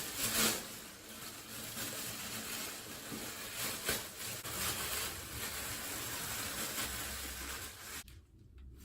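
Plastic garbage bag rustling and crinkling as it is pulled off the body, a continuous crackling noise with sharper crinkles here and there, which stops abruptly about eight seconds in.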